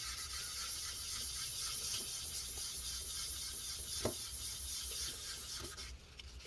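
Paper towel wiping old thermal paste and isopropyl alcohol off a laptop heatsink: a steady rubbing hiss that stops near the end, with a faint tap about four seconds in.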